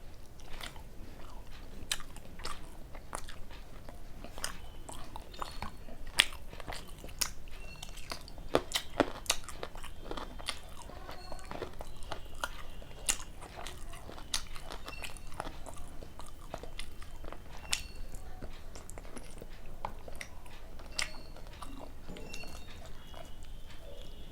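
Close-miked eating: a person biting and chewing luchi with chicken kosha and onion, with frequent irregular crunches and wet mouth clicks.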